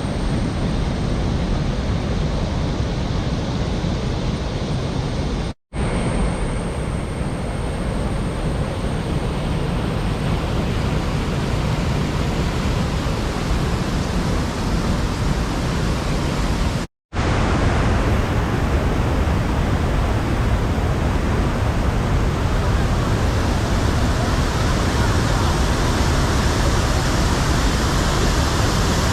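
Steady rush of a waterfall's falling water, broken twice by a brief gap of silence, about six seconds in and again about seventeen seconds in.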